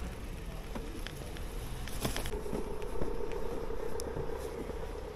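Street noise while riding: a steady mechanical hum, louder from about two seconds in, over a low rumble, with a few scattered clicks.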